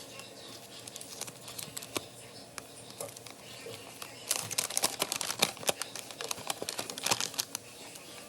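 Crinkling and rustling of a dimmer switch's packaging and paper instruction sheet being handled, with many small clicks, busiest in the second half.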